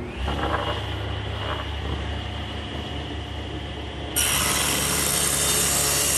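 Table saw running with its blade spinning freely, then about four seconds in the blade enters a glued-up oak panel and the rip cut begins, the sound jumping much louder and harsher and holding steady as the board is fed through.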